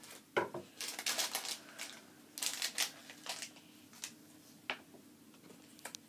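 A crinkly plastic blind bag rustling and crackling as it is cut open with scissors and handled, in two short spells, with a soft knock about half a second in and a few light clicks later.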